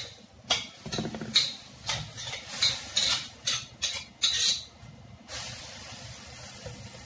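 Metal spatula scraping and clanking against a wok while stirring moringa leaves and pork, a quick uneven run of about a dozen strokes. From about five seconds in, the strokes stop and a steady sizzle of the pan is left.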